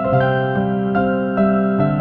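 Background music: a soft, slow electric-piano melody with sustained notes.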